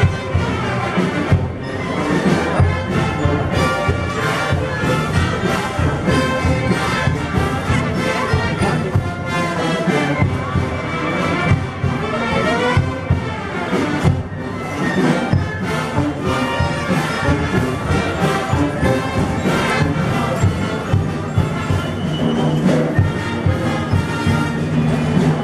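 Guatemalan procession wind band (banda de filarmónicos) playing a processional march: brass melody and harmony over a regular drum beat.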